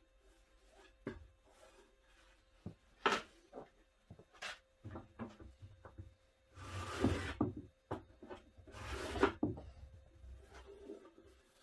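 Hand-trimming the iron-on veneer edge tape along a wooden cabinet panel: scattered light taps and knocks, with two longer scraping strokes in the second half.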